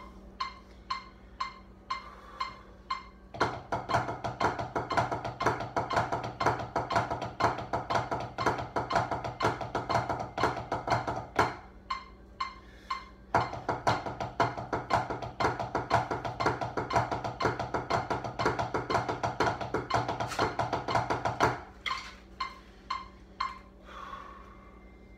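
Drumsticks striking a practice pad: a steady pulse of single strokes about two a second, breaking into fast, dense stick patterns from about 3 s to 11 s and again from about 13 s to 21 s, then back to the slow pulse near the end.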